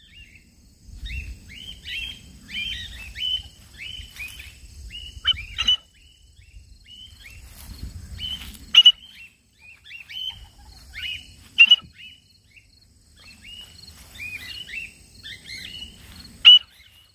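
Cockatiels calling back and forth with many short chirping contact calls, several sharper and louder calls among them. A low rumble sits underneath at times.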